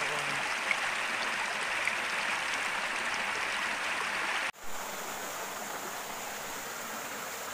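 Steady rush of water from a small waterfall. It breaks off abruptly about four and a half seconds in and carries on slightly quieter.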